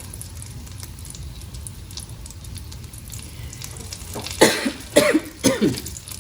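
A woman coughs three times in quick succession about four seconds in, over the quiet, steady sizzle of flatbread toasting in an oiled frying pan.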